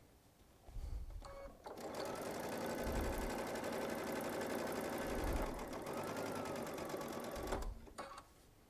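Baby Lock Solaris sewing machine stitching a straight piecing seam through quilt fabric at a steady speed for about six seconds. It starts about two seconds in and stops about a second before the end.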